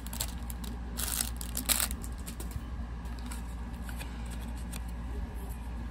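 Hands handling packaging and a small item: soft rustling with a couple of short clicks about one and two seconds in, over a steady low hum.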